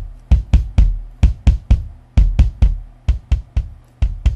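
Programmed rock drum loop from the UJAM Virtual Drummer Brute plugin playing a steady beat: kick, snare and cymbal hits. Fruity Blood Overdrive distortion is being turned up on the kit channel.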